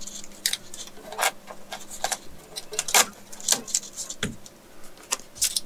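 Hands working material along a ceiling edge: a string of small, irregular clicks, taps and rustles, over a faint steady hum.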